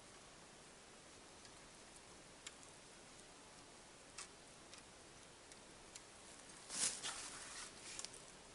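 Steel wire being bent and twisted by hand with a multi-tool: a few faint scattered clicks. About seven seconds in comes a louder, brief rustle.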